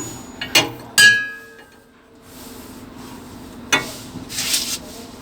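Metal hand tools knocking and clinking against metal, with one loud ringing clang about a second in and another knock near the end, followed by a short hiss.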